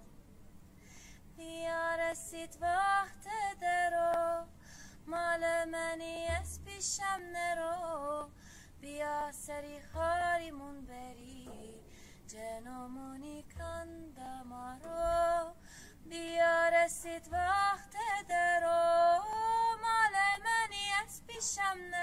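Background music: a woman singing a slow song with wavering, ornamented notes, with a soft low beat every few seconds.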